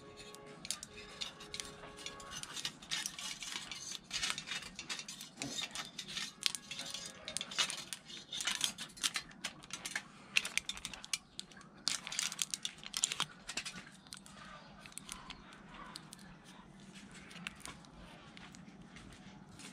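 Aluminium foil crinkling in the hands as it is folded and wrapped around a matchstick, in faint, irregular crackles that thin out over the last few seconds.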